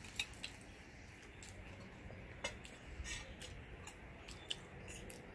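Quiet eating sounds while chewing pancit bato noodles: a handful of faint, sharp clicks scattered through, the loudest near the start and about two and a half seconds in.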